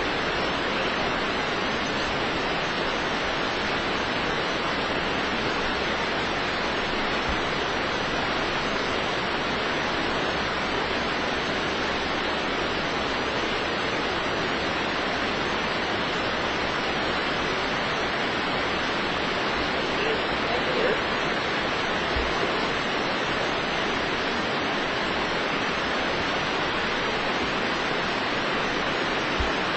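Shannon Falls, a 335-metre waterfall, pouring down its rock face: a steady, full-range rush of falling water.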